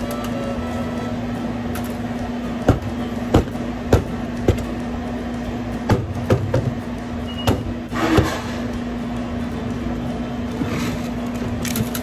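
A metal spoon and plastic cups knocking and tapping as granola and berries are spooned onto yogurt parfaits: about nine sharp knocks between about three and eight seconds in, over a steady low hum.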